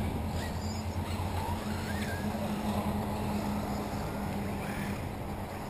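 A steady low hum, with a few faint whines rising and falling now and then from the electric motors of 1/8-scale RC buggies racing on the track.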